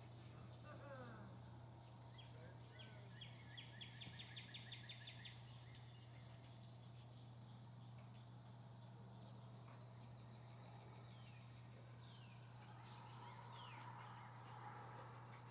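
Faint outdoor ambience: a steady high insect drone over a low steady hum, with bird calls. A fast trill of about a dozen notes comes a few seconds in, and a few short falling chirps come near the end.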